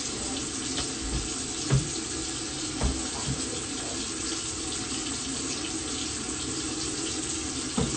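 Water running steadily in a bathroom, an even hiss, with a couple of faint low knocks about two and three seconds in.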